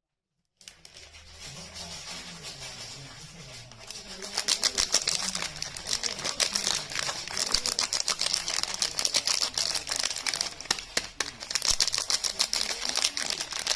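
Soap being unboxed: dense, rapid crinkling and crackling of the soap and its wrapping being handled. It starts soft about half a second in and gets louder and busier about four seconds in.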